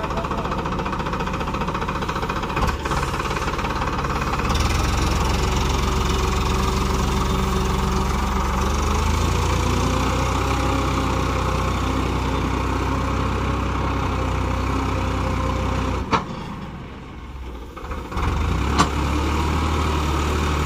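Farmtrac 45 tractor's diesel engine running steadily with a deep, even hum. Near the end it drops quieter for about two seconds after a click, then picks back up with another click.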